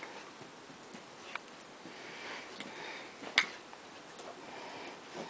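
A dog sniffing and snuffling as it plays, with a sharp click about a second and a half in and a louder click about three and a half seconds in.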